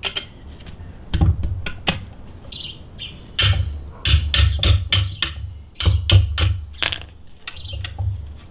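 A screwdriver prying and knocking at a plastic pool-pump seal plate stuck on an old motor's flange: a run of irregular sharp knocks and clicks with low thumps under them, most of them bunched in the middle. The seal plate is being worked loose, often the hardest part of removing an old motor.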